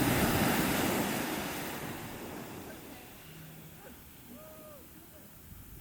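Ocean surf: a wave breaking and washing in, loudest at the start and fading away over the next three seconds, leaving a quieter steady wash of sea and wind.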